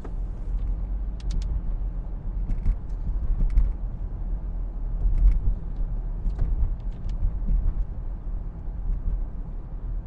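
Car driving on a wet, slushy road, heard from inside the cabin: a steady low rumble of road and engine noise, with a few light clicks scattered through it.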